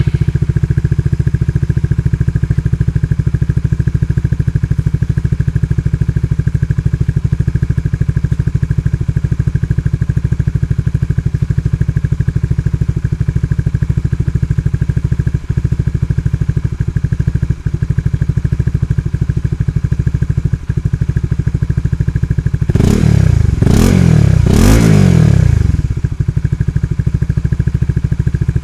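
Honda Supra GTR 150's single-cylinder engine idling steadily through an aftermarket exhaust, then three quick throttle blips near the end that rise and fall back to idle.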